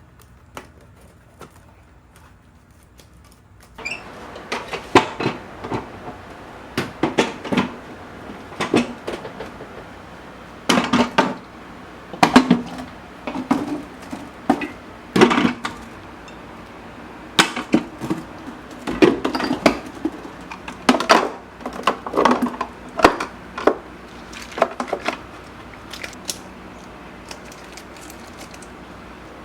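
Containers and jars being handled and set down in a refrigerator, making irregular clinks and knocks that start about four seconds in.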